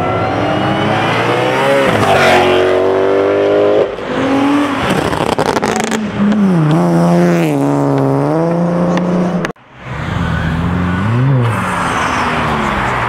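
Drift car's engine revving hard, its pitch climbing and falling again and again, over a steady rushing hiss of noise. The sound drops out abruptly for a moment about nine and a half seconds in.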